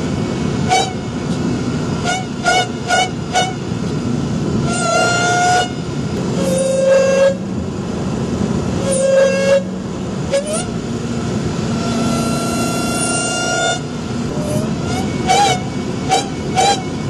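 Supercharged engine blipped again and again, with the supercharger's pitched whine jumping up and falling back on each short blip and held steady for a second or two on a few longer revs, over the engine's steady running.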